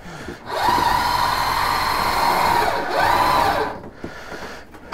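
The electric motor of a PowerMate stair-climbing hand truck runs under load as it lifts a boiler up a stair step. It is a steady whine that starts about half a second in, swells again near the end and stops after about three seconds.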